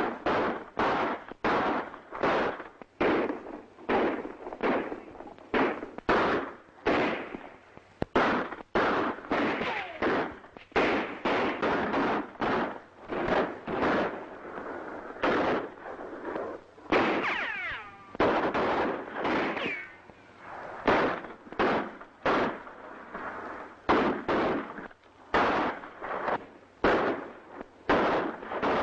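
Gunfight: dozens of gunshots fired irregularly, about one or two a second, each with a short echo. A few seconds past the midpoint come falling whines of ricochets.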